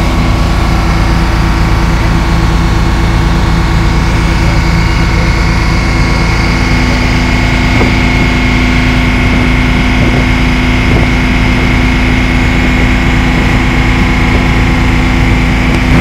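Motorboat engine running steadily under way, heard from aboard: a constant loud drone with a low rumble and a faint steady high whine.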